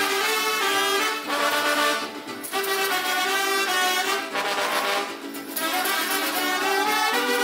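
Brass band playing music for the Kurpites dance, with trumpets and trombones carrying the tune in phrases broken by short pauses.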